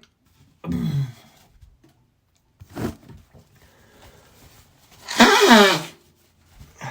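A person sneezing and blowing their nose, set off by a dog allergy: a short burst about a second in, a brief one near three seconds, and a loud, longer one with a wavering pitch at about five seconds.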